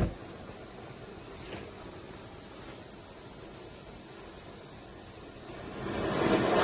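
A steel-cutting torch lights with a short pop, then a steady hiss of gas and flame that grows louder near the end.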